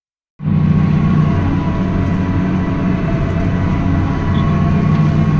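Tractor engine running steadily under load while pulling a hay rake. It cuts in abruptly about half a second in.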